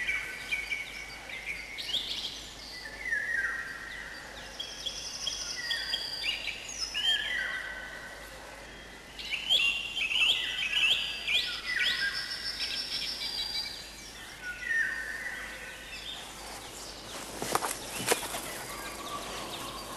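Several songbirds singing and calling, with overlapping chirps and trills throughout and a couple of sharp clicks near the end.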